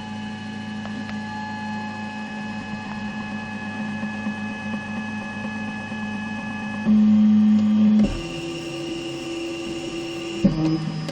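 Zortrax M200 3D printer's stepper motors running with steady whining tones. The pitch changes a few times as the moves change, with the loudest stretch lasting about a second past the middle. The owner reports a scratchy noise from the Z axis when the printer is cold, louder since firmware v0.0.7, which goes away once the printer is warm.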